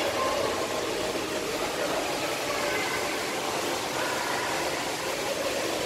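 Steady, even hiss of an aquarium hall's background noise, with faint distant voices now and then.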